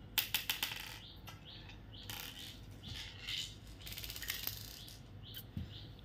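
Glass marbles clicking and rattling on a hard tile floor as a parrot pecks and pushes them: a quick run of clicks early in the first second, then scattered taps and short rolls.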